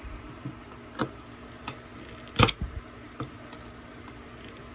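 A few sharp clicks and taps of small metal parts being handled as a little washer is worked off the motor shaft of a door lock actuator, the loudest click about two and a half seconds in.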